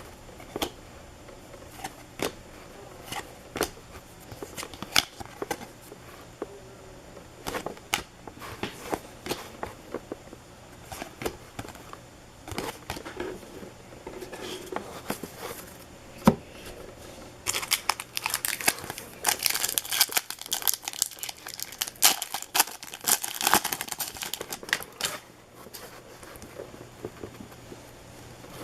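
Baseball card pack wrappers being torn open and crinkled, with the light snaps and clicks of cards being handled. The crinkling is densest for several seconds past the middle.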